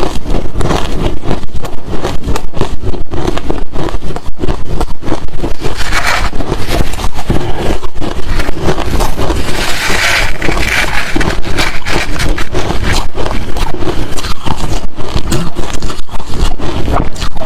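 Close-miked crunching of hard crushed ice and shaved ice chunks being chewed: rapid, continuous crunches that are loud throughout, with brighter, noisier stretches around six and ten seconds in.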